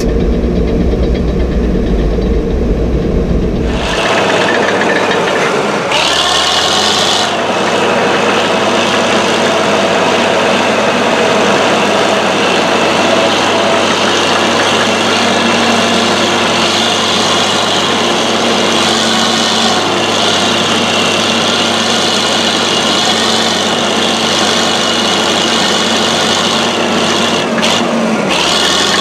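Fiat-Allis AD14-C crawler dozer's diesel engine running at full power under heavy load, pushing on hard ground. For the first few seconds it is heard from inside the cab with a deep rumble, then from outside.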